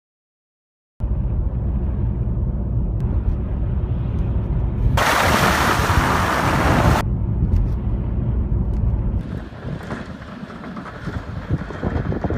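Snowblower engine running steadily, with a loud rushing hiss for about two seconds midway; the engine sound drops away about nine seconds in.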